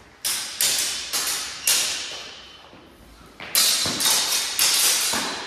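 Longswords clashing in a sparring exchange: two quick flurries of about four sharp blade strikes each, a short pause between them, every strike ringing on with an echo from the large hall.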